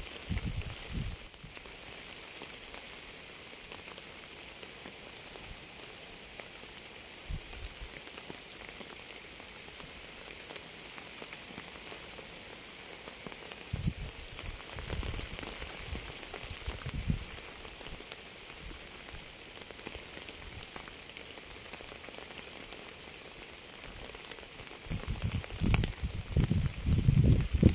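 Steady rain falling on a surface, an even hiss of drops. Low rumbles come and go under it, strongest near the end.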